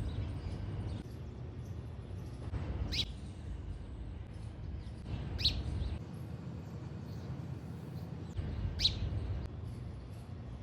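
House sparrow giving single sharp chirps a few seconds apart, three loud ones and fainter ones between, over a steady low background rumble.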